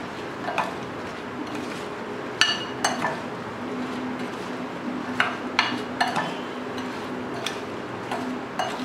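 Metal spoon stirring oil-coated, spice-covered green chillies in a glass bowl, with irregular sharp clinks of the spoon against the bowl about ten times.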